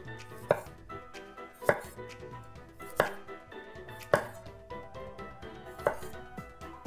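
Chef's knife slicing raw carrots on a wooden cutting board: five sharp knocks as the blade hits the board, about one every second or so.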